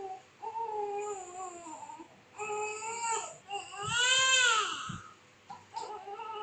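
Newborn baby crying in several short wails, the loudest a long rising-and-falling wail about four seconds in.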